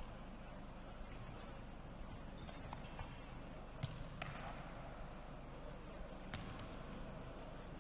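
Football being kicked and caught in a sports hall: a few sharp thuds, the loudest about four seconds in, over a steady low hall hum.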